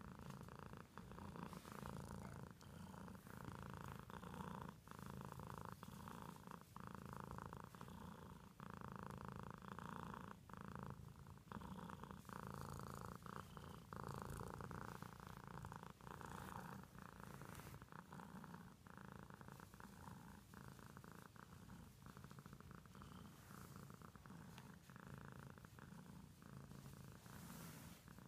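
Domestic cat purring softly and continuously while having its cheek and head scratched, the purr broken by short pauses about once a second.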